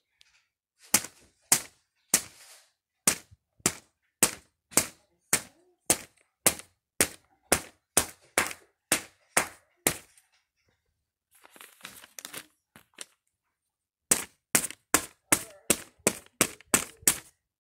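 Scissors snipping through paper: a steady run of sharp snips about two a second, a short pause with faint paper rustling, then a faster run of snips near the end.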